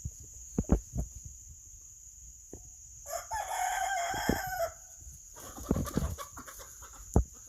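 A rooster crowing once, a drawn-out call of about a second and a half beginning about three seconds in, over the steady high buzz of insects, with a few short knocks.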